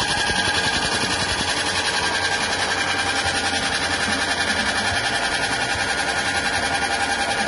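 A belt-driven soybean grinding machine running steadily with an even, fast mechanical rhythm as it grinds soaked soybeans into mash.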